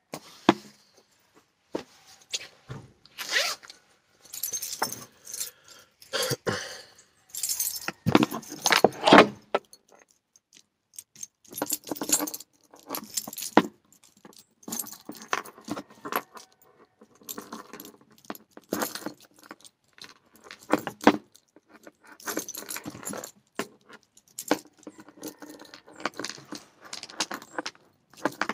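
A bunch of keys on a keyring jangling and clinking in the hands in short, irregular bursts as they are sorted through, mixed with handling scrapes.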